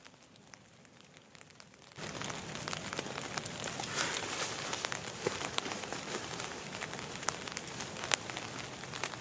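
Steady rain falling, an even hiss with many sharp ticks of drops, starting abruptly about two seconds in after a faint, quiet opening.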